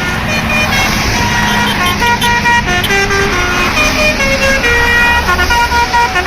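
A bus's multi-tone 'telolet' horn playing a quick melody of stepped notes over the bus engine running.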